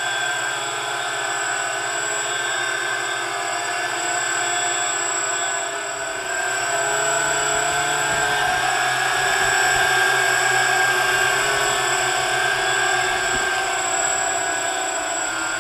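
Electric motors and ducted fans of a radio-controlled tricopter hovering close overhead: a steady multi-tone whine whose pitches waver slightly as the motors adjust thrust. A low rumble joins about six seconds in, and the sound grows a little louder.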